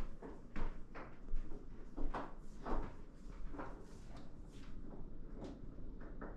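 A sliding glass balcony door being opened, with footsteps and handling knocks: a string of short, irregular thuds and scrapes about every half second.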